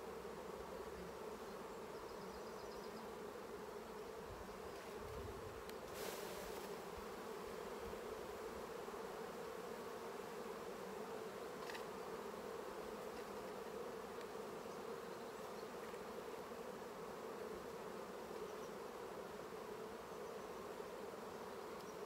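Honeybees buzzing around an opened hive, a dense steady hum. A brief click sounds about six seconds in and a fainter one near twelve seconds.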